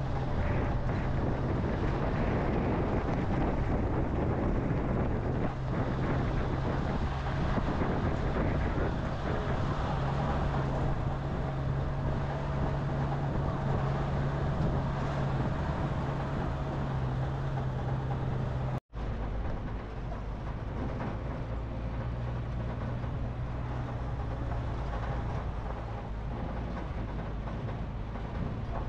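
Steady drone of a moving vehicle's engine and road noise. The sound drops out for an instant about two-thirds of the way through, then the drone carries on slightly quieter.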